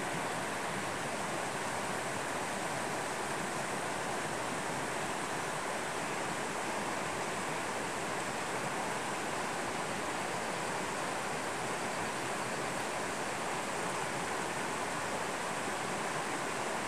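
Steady rushing of a mountain stream, an even noise with no breaks.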